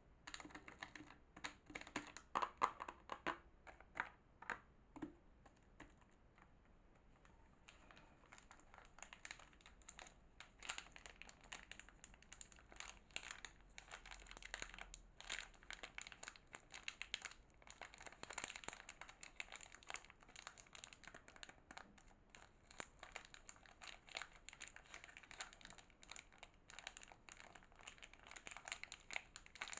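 Soap packaging being unwrapped by hand: dense crinkling and crackling of the wrapper with small tearing sounds. It is louder and sharper in the first few seconds, pauses briefly, then goes on as steady, softer crinkling.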